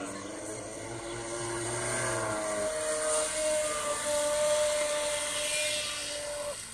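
Radio-controlled model speedboat's motor running flat out: a steady high whine whose pitch steps up about halfway through, over a hiss, cutting off abruptly near the end.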